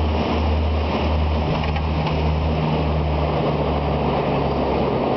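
Cockpit noise of a de Havilland Canada Dash 8 turboprop rolling out on the runway after touchdown. A steady low propeller drone sits under a broad rush of airflow and wheel rumble, and the low drone drops away at the very end.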